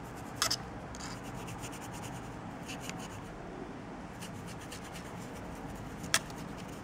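Stiff paintbrush dry-brushing a plastic miniature, the bristles scrubbing back and forth with a soft, steady scratchy rubbing. A couple of small clicks come about half a second in and a sharper click near the end.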